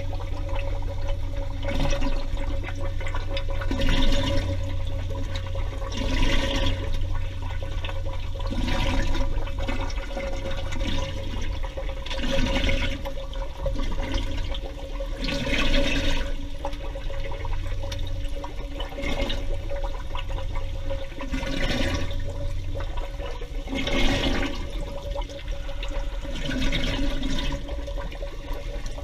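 Underwater recording of air bubbles gushing out in repeated surges, about every two to three seconds, over a steady low hum and a constant mid-pitched tone.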